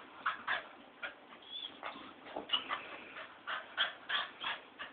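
A mongrel dog barking at a light: a rapid, irregular string of short, sharp barks, about a dozen.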